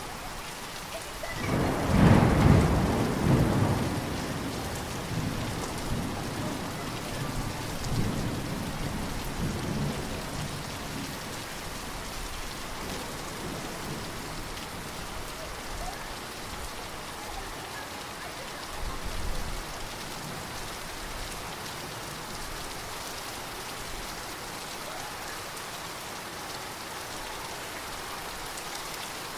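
Steady rainfall with a clap of thunder about two seconds in that rumbles on, fading in waves over the next several seconds; a fainter low rumble comes later.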